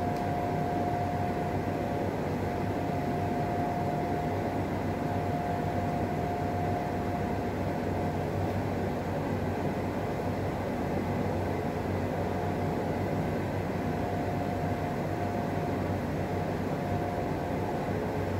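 Steady mechanical drone with a low hum and a constant high whine that fades and returns.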